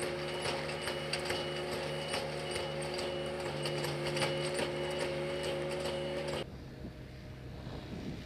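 Artificial-turf infill machine running: a steady mechanical hum with rapid clicking and rattling and a tick repeating about twice a second. About six seconds in it cuts off abruptly, leaving a quieter open-air background.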